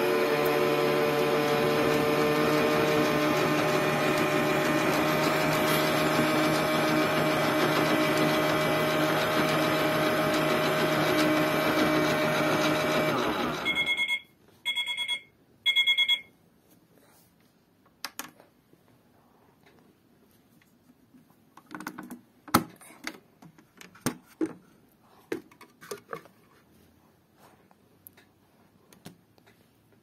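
Small electric motor of a Theo Klein toy Miele washing machine running steadily as the drum turns the laundry, then cutting off suddenly about 14 s in. Three short electronic beeps follow a second apart, marking the end of the programme, and then scattered light plastic clicks and knocks as the machine is handled and its door opened.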